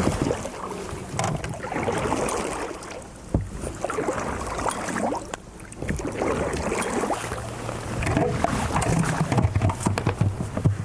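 Water sloshing and splashing around a small boat in uneven swells, with a single sharp knock about three seconds in.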